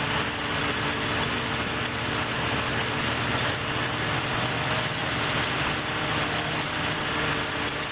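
A bulldozer's heavy diesel engine running steadily under load, with a dense mechanical hiss over a low, even drone. It sounds horrible.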